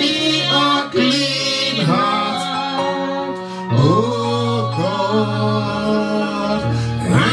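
Music: a song with a voice singing over sustained instrumental accompaniment.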